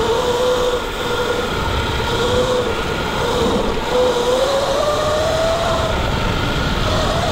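Sur-Ron electric dirt bike's motor whining, the pitch climbing in steps as the bike accelerates. Under it runs a steady rush of wind and tyre noise on the dirt trail.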